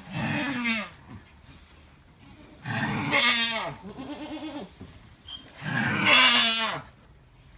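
Alpine doe in labour crying out three times, each a loud call about a second long that mostly falls in pitch, with quiet pauses between.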